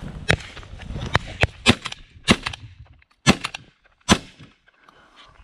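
A string of shotgun shots at flushing pheasants: several sharp reports over about four seconds, some close and loud and some fainter, with a quiet stretch near the end.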